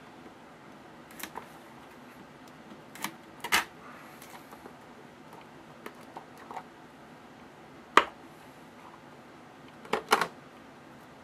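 Scattered sharp clicks and taps, about half a dozen, from a trading-card box and its cards being handled and opened on a table. The loudest is a single sharp click about eight seconds in, followed by a quick double tap about ten seconds in.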